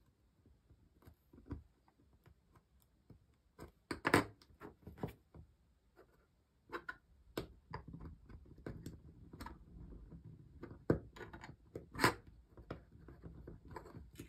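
Irregular small clicks and taps of metal tweezers and component leads being pushed into a solderless breadboard, with the loudest clicks about four seconds in and again near twelve seconds.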